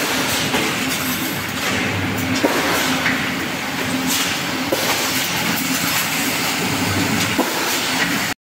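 Welded wire mesh machine running on the factory floor: a steady mechanical hum with a sharp knock every couple of seconds. The sound cuts off suddenly near the end.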